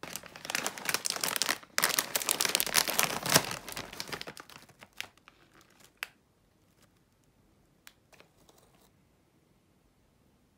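A foil-lined snack bag of Polinky corn chips being opened: dense crinkling and tearing for about four seconds, with a brief pause near the start. This thins out to a few scattered crinkles, and then some faint rustles as the open bag is handled.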